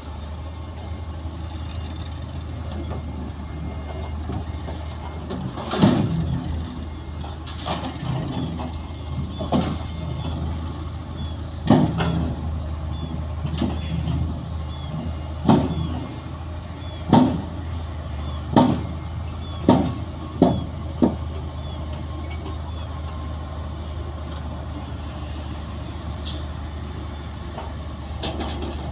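Heavy diesel engines of a bulldozer and dump truck running steadily, with about ten loud irregular bangs and clanks bunched through the middle and a faint repeating beep.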